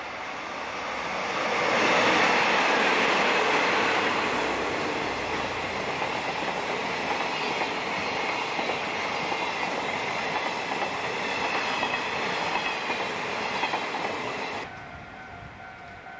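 Train passing close by: the rumble of wheels on rails swells loud about two seconds in and holds, with repeated clacks over the rail joints. It cuts off suddenly near the end.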